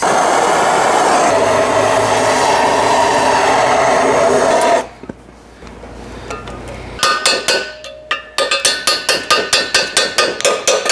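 Handheld propane torch burning with a steady rush of flame for about five seconds. After a short pause comes a quick run of metallic clinks and taps, about five a second, as locking pliers work a cylinder-head alignment dowel loose from the engine block.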